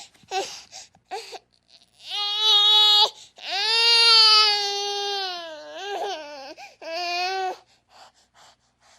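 A baby crying: two short cries, then two long wails, the second about three seconds long and wavering in pitch near its end, then another short cry and a few faint whimpers.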